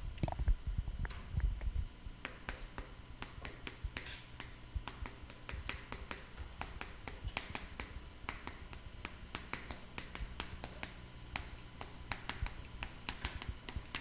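Chalk writing on a blackboard: a quick, irregular run of sharp taps and clicks as the chalk strikes the board with each stroke, with a few dull thumps in the first couple of seconds.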